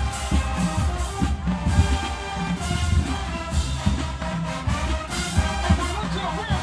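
Marching band playing: the brass section holds full chords over regular bass drum and percussion hits.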